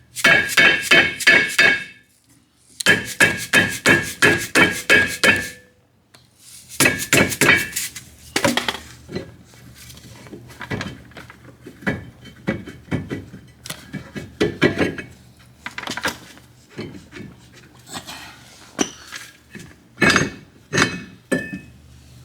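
A rubber mallet striking metal brake parts to knock loose stuck pieces. There are two quick runs of blows, about five a second, each with a short metallic ring, then slower, scattered strikes.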